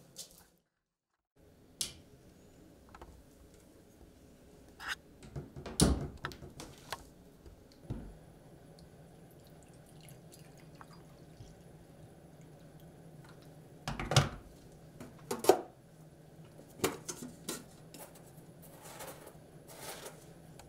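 Someone making a cup of tea: scattered knocks and clinks of a ceramic mug and kettle on a worktop, and water poured from an electric kettle into a mug, over a low steady hum.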